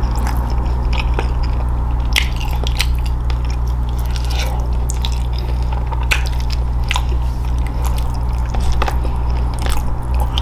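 Close-miked eating: scattered crunches, bites and wet chewing sounds, over a steady low hum.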